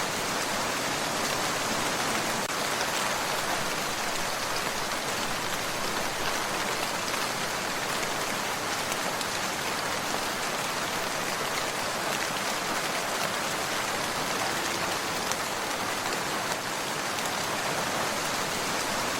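Steady, soft rain falling, an even patter of drops on a surface.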